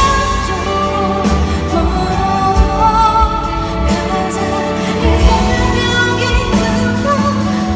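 Live pop ballad: a woman singing over a backing band, with a low bass line and steady drum hits.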